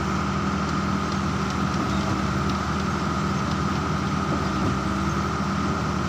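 Engine running steadily, a low even hum with a steady high whine over it.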